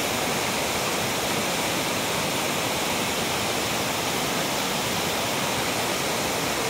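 Meenvallam waterfall's water rushing, a steady, unbroken noise of falling and flowing water.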